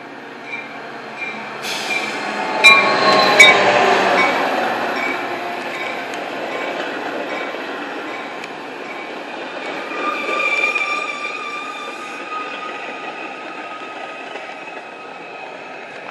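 Metra diesel-hauled commuter train pulling into a station: the locomotive passes loudly a few seconds in with two sharp clanks. The double-deck passenger cars then roll by, slowing, with a steady high-pitched brake and wheel squeal that swells again later and fades.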